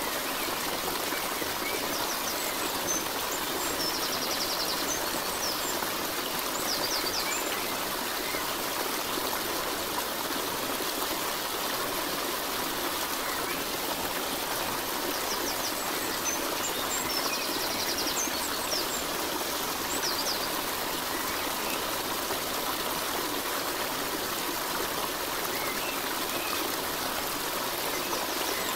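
Steady running water of a stream, with a few short bursts of high bird chirps over it, near the start and again midway.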